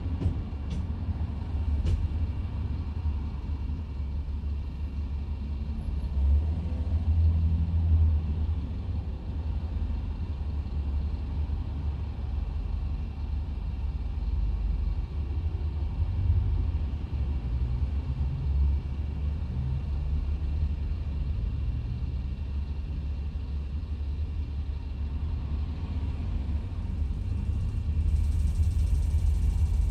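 Steady low rumble, with a few faint clicks in the first couple of seconds.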